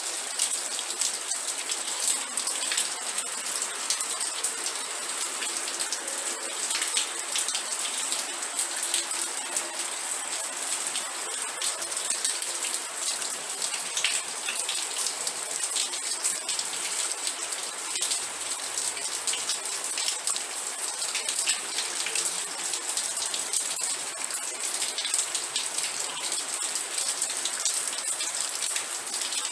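Steady rain falling, with many close drops pattering on a surface.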